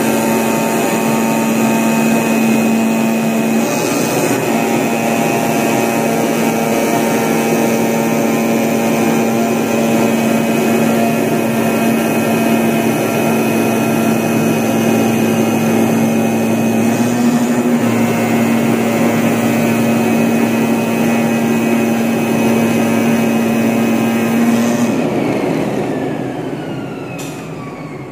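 CNC vibrating-knife cutting machine running with a loud, steady hum and buzz while it cuts multilayer sound-insulation cotton. About 25 s in the steady sound stops and the machine winds down, with whines falling in pitch as it slows.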